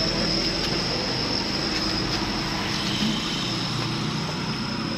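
A vehicle engine running steadily with a low hum, under a thin, steady high-pitched whine.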